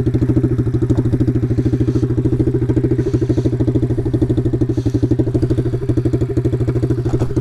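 Taotao DB17 125cc single-cylinder four-stroke pit bike engine running at steady revs, with a fast, even exhaust pulse.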